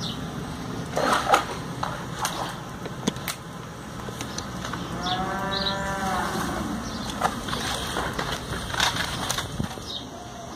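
A cow mooing once about halfway through: a single long call that rises and then falls in pitch. Scattered sharp clicks and knocks come before and after it.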